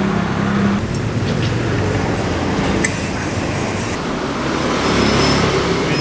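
Motor vehicles and road traffic running, a dense steady noise with no clear single event.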